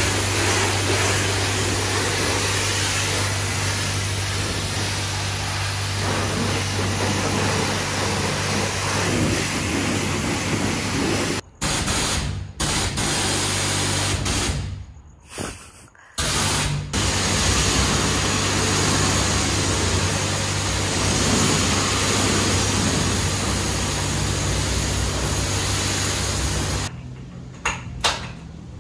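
Self-serve car wash high-pressure wand spraying water over a car, a steady hiss over a low hum. The spray cuts out briefly a few times midway and stops shortly before the end, leaving a few sharp knocks.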